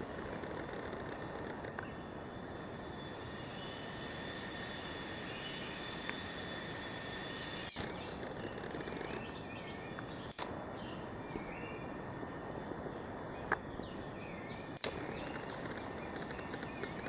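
Forest ambience: a steady insect drone with a constant high tone over a broad hiss, with birds chirping from about halfway through. The sound drops out briefly three times, and there is one sharp click.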